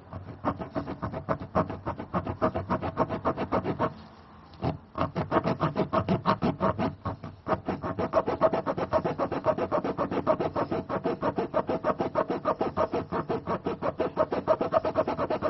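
Spiral reamer of a tyre plug kit being worked rapidly in and out of a nail puncture in a car tyre, rubber and steel cords scraping against the rasp in a fast, even rhythm of about five strokes a second, with a short pause about four seconds in. The hole is being cleaned out and opened up to take a plug.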